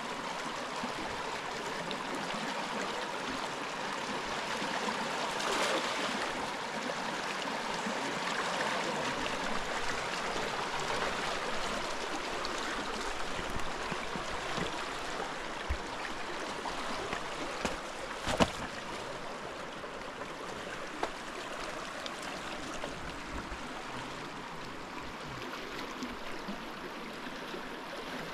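Large river rushing, a steady flow of water noise, with a few sharp knocks, the loudest about two-thirds of the way through.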